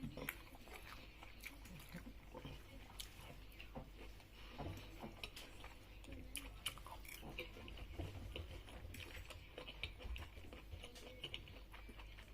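A person chewing and biting food, faint, with many small scattered clicks and crunches.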